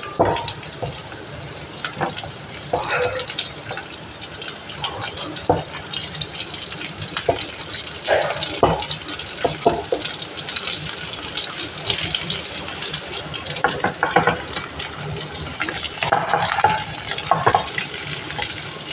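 Pieces of fried fish with onion and garlic sizzling steadily in oil in a nonstick wok, with scattered scraping knocks of a spatula stirring them.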